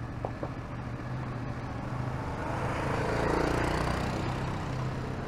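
Yamaha Tracer 7's parallel-twin engine running steadily at low road speed, with a rush of noise that swells to a peak about three and a half seconds in and fades as another motorcycle passes alongside.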